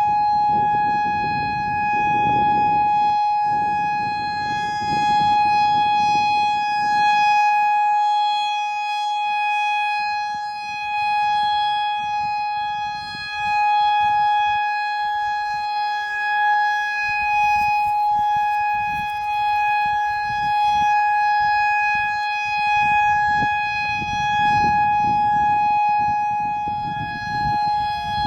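Federal Signal EOWS 612 electronic outdoor warning siren sounding a steady, single-pitch tone for a tornado drill test. The tone swells and fades every few seconds, with a low rumble underneath at the start and again near the end.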